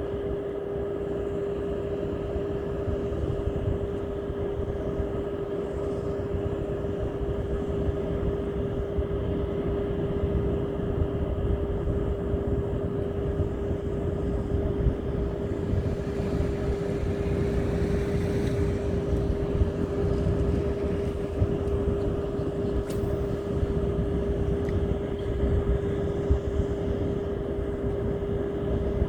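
Steady motor drone: one constant hum over a low rumble, unchanging throughout, with a brief hiss that swells and fades a little past halfway.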